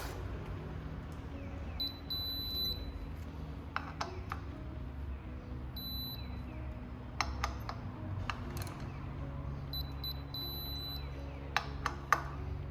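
Background music with short, repeated high electronic beeps, with a few sharp clicks and knocks, two close together near the end.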